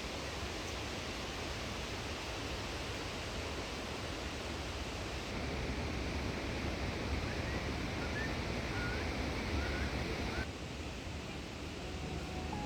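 Steady rushing outdoor ambience, an even noise like moving water or wind, with a few short high chirps around seven to ten seconds in. The level drops slightly about ten seconds in.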